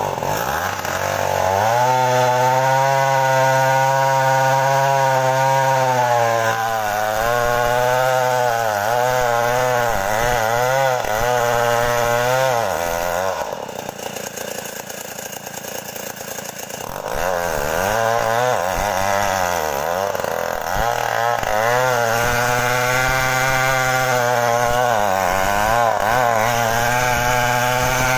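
Stihl 070 two-stroke chainsaw revving up to full throttle and cutting wood, its engine pitch wavering as it loads in the cut. About halfway it drops to a lower, quieter drone for a few seconds, then revs up and cuts again.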